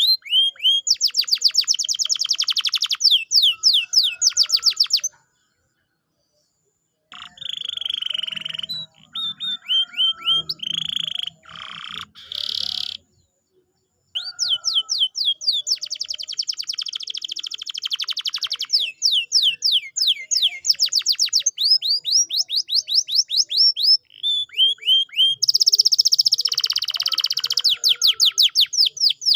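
Domestic canary singing: fast trills and rapid runs of falling whistled notes in long phrases, broken by two silent gaps of a second or two, about five seconds in and again near the middle.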